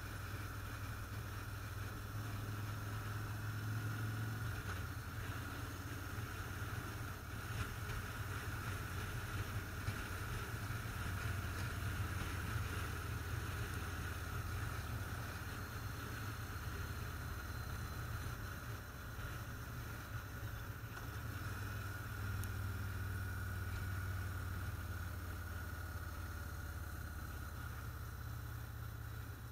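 Motorcycle engine running steadily while riding at cruising speed, with road and wind noise.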